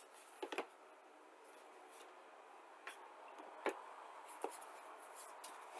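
Quiet handling noises: a few light clicks and taps with faint rubbing as small airbrush parts and packaging are handled.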